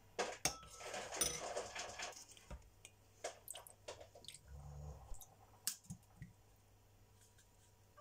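Scattered clinks and light knocks of a metal spoon in a ceramic bowl of marinade, and of a bottle of lemon juice being handled and poured.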